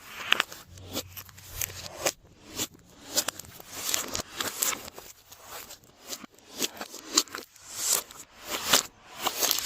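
Glossy slime being kneaded and mixed by hand: sticky squishing with sharp clicks and crackles, swelling and fading about once a second.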